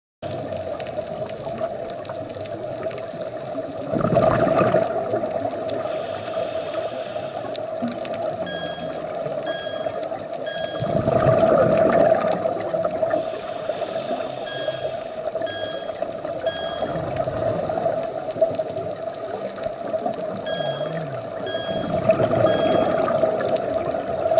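Underwater scuba-dive sound: a steady hum with swells of bubbling from divers' exhaled air. Over it an electronic alarm, such as a dive computer's, beeps in groups of three, three times about six seconds apart.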